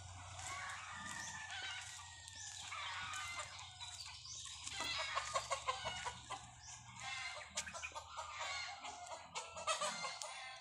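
Chickens clucking and a rooster crowing.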